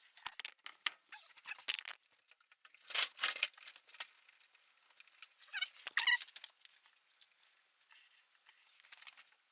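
The rubber bead of a Jenex V2 Aero 150 roller-ski tire being forced by hand over the wheel rim: irregular squeaks and scrapes with small clicks, in three louder spells.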